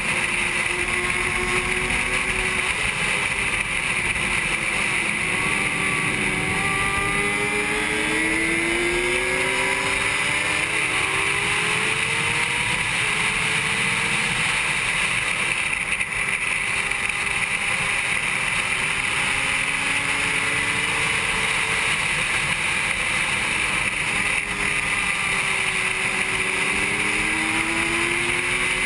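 Honda CBR600RR's inline-four engine at racing speed, its revs climbing again and again and dropping at each gear change, under a steady rush of wind noise.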